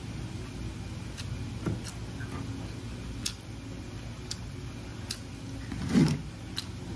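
Quiet eating by hand over a steady low hum: a scattering of small clicks and taps from fingers, plate and food. About six seconds in there is one short, louder low sound.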